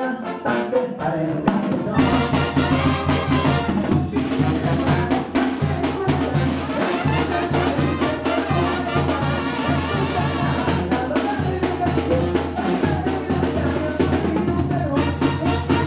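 Mexican banda music: brass and drums over a steady bass, fuller from about two seconds in.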